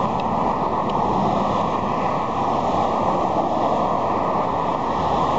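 Steady rush of road traffic, cars passing close by on a busy road.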